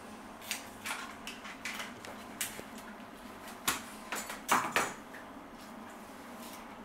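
Light clicks, taps and scrapes as a blade-tipped soldering iron and an LCD panel are worked and handled on a glass work plate. There is a louder clatter about four and a half seconds in.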